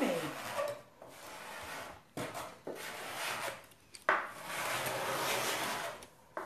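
Knife blade scraping dried paint off a painted wooden tabletop in a series of rasping strokes with short pauses between, the longest near the end. The scraping distresses the paint to give an aged patina finish.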